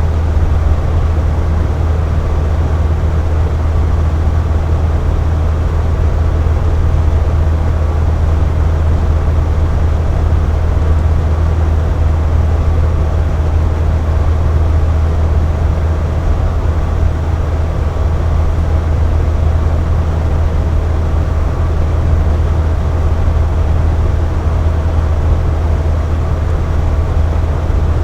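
Box fan running steadily: a constant low whooshing hum of air and motor, with faint steady tones above it.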